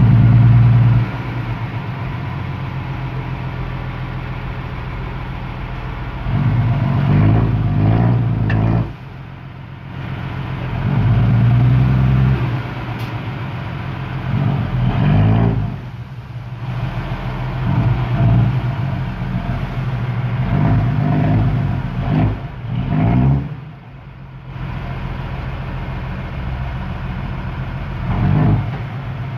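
Six-wheel dump truck's diesel engine running and revving up and dropping back several times while the raised bed tips out its load of soil.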